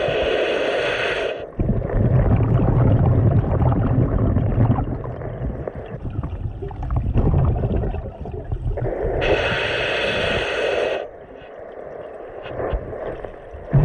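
A scuba diver breathing through a regulator underwater. A hiss of inhalation at the start and again about nine seconds in frames a long stretch of low, gurgling rumble from exhaled bubbles.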